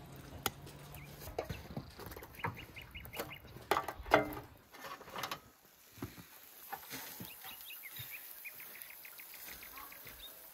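Birds calling in the background: two fast runs of rattling notes, with a few sharp knocks about four seconds in.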